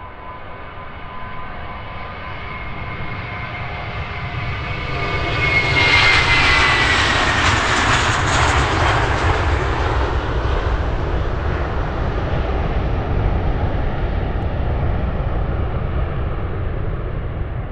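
Jet airliner passing close by. Its engines' high whine falls in pitch as it goes past, about six seconds in, then gives way to a loud, steady rumble.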